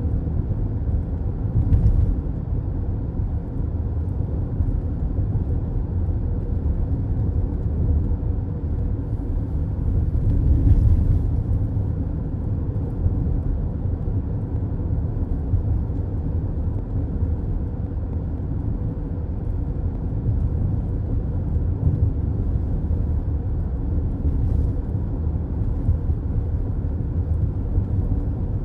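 Car driving at highway speed, heard from inside the cabin: a steady low tyre and road rumble, with a brief bump about two seconds in and a louder swell a little past ten seconds.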